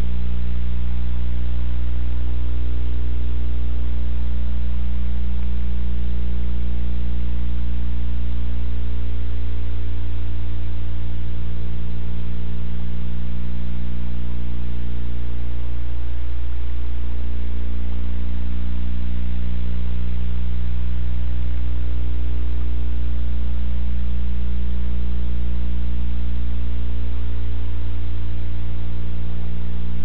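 Steady electrical mains hum: a loud, constant low drone with a stack of even overtones above it and a faint hiss, wavering slightly every few seconds.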